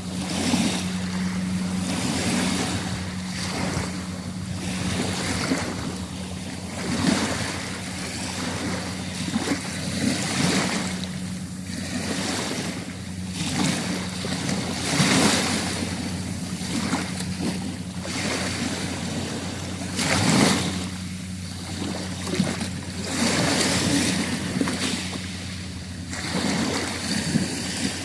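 Sea waves washing in and breaking on the shore in uneven surges every second or two, with wind on the microphone and a steady low hum underneath.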